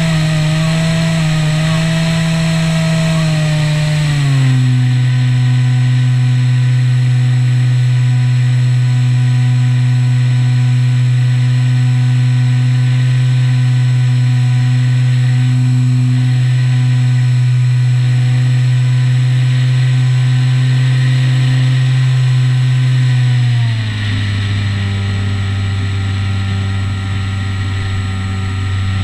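Skywalker 1900mm RC plane's electric motor and propeller running with a steady drone. The pitch steps down about four seconds in and again near the end as the throttle is eased back.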